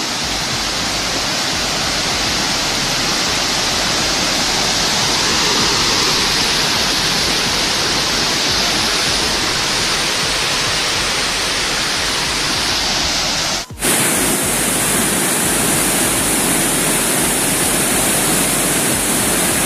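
Steady rushing of Elephant Falls, a tiered waterfall in spate. About 14 seconds in there is a brief break, and after it the rush is brighter and hissier, heard closer to a broad cascade.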